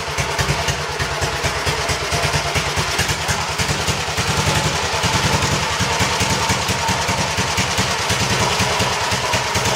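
1927 BSA S26 single-cylinder motorcycle engine running steadily with an even firing beat, on its first start after restoration.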